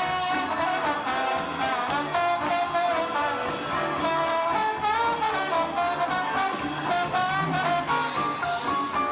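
Live swing band playing an instrumental passage, with horns carrying a melody of held, wavering notes over a steady drum beat. Heard through a VHS-C camcorder recording.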